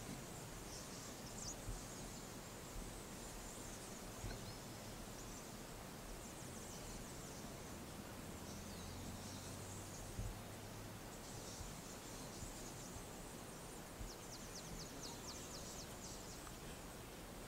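Quiet outdoor ambience on an open golf course: faint high chirps and rapid trills of birds and insects over a low background hiss, with a few soft knocks.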